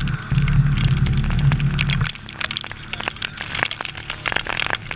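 Rain and spray spattering on the camera housing aboard a sailboat heeling in rough, wet weather, heard as many sharp crackling ticks. Under them is a low wind rumble that cuts off about two seconds in.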